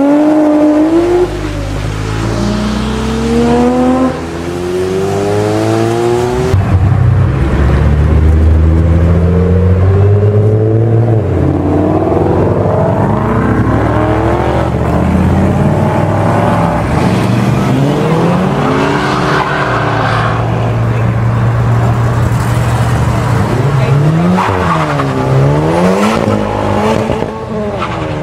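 A succession of high-performance cars accelerating hard, the engine pitch climbing and dropping back at each gearshift. There are stretches of deep, steady engine drone, and near the end the revs are blipped up and down several times.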